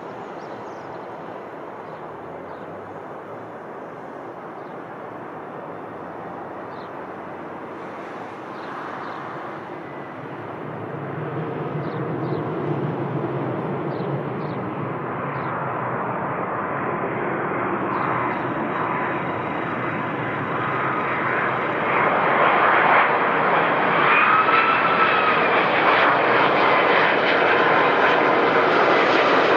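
Wide-body jet airliner's engines, a steady noise growing louder throughout, with a marked jump about two-thirds of the way through. A whining tone rises and falls in pitch near the end.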